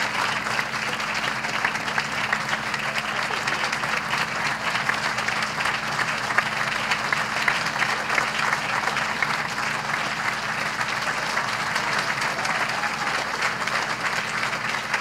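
Audience applauding, a steady crackle of many hands clapping.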